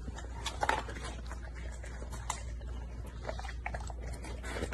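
Two golden retrievers crunching and licking small pieces of ice off a wood floor: irregular sharp crunches and clicks.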